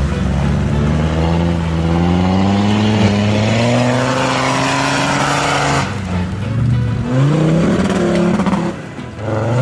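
Off-road 4x4 SUV engines revving hard under load as they climb a muddy slope. One long rise in pitch lasts about six seconds, then after a sudden break come shorter revs rising again.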